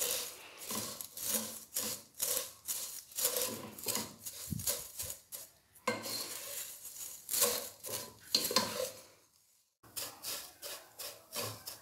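A spatula stirring and tossing thin vermicelli as it fries in ghee in a pan: repeated dry scraping, rustling strokes, about two or three a second, breaking off briefly about nine seconds in.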